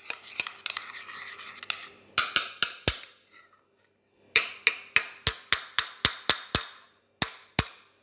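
A spoon clicking against the side of a bowl in quick strokes as a slime mixture is whisked, about three to four clicks a second in runs, with a pause of about a second near the middle.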